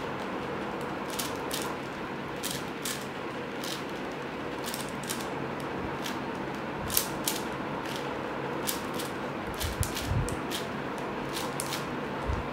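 A 4x4 Rubik's cube being turned by hand: an irregular run of plastic clicks as its layers snap round while a long edge-pairing algorithm is worked through.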